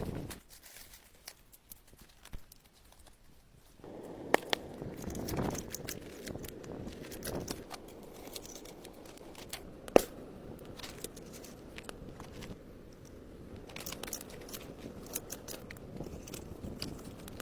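Crunching and rustling with many scattered sharp snaps, one loud crack about ten seconds in: branches and snow being worked while building a shelter. The first few seconds are quieter.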